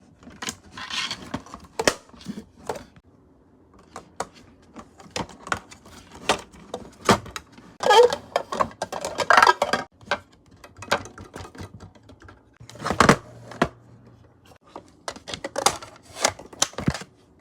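Irregular clicks and taps of small hard objects being handled, with a few short rustling or scraping stretches.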